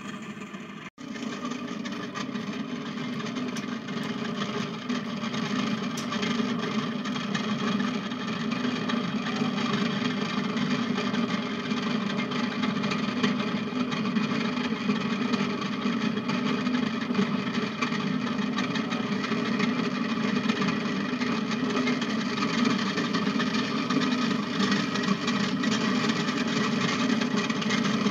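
Motorised potter's wheel running at steady speed: a constant motor hum made of several even tones, with a brief dropout about a second in.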